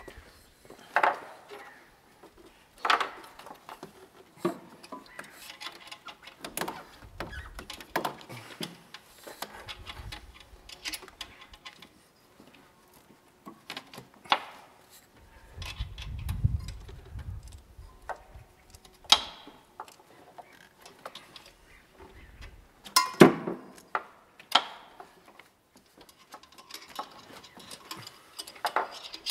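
Scattered metallic clicks, clinks and knocks of hand tools and engine parts being handled during engine assembly, with a rubber intake hose being pushed onto its fitting. A brief low rumble comes about halfway through.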